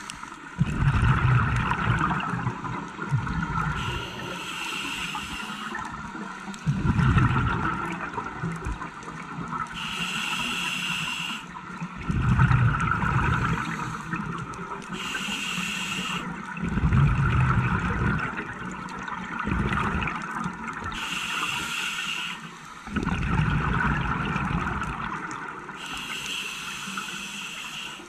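Scuba diver breathing through a regulator underwater: a short hiss on each inhale, then a louder burst of bubbling as the exhaled air leaves the regulator. About five breaths, roughly one every five and a half seconds.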